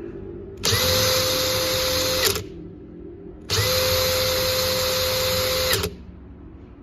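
Makita HP001G 40V max cordless hammer driver-drill running twice at a steady speed with a steady whine, each run about two seconds long, with a second's pause between. Each run starts and stops sharply.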